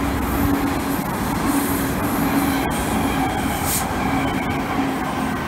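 Transperth B-series electric train passing close by on the rails: a steady run of wheel-on-rail noise with an even hum from its electric drive.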